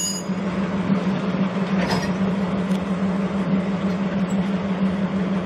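DE10 diesel-hydraulic locomotive's V12 diesel engine running with a steady low drone during shunting, with a faint knock about two seconds in.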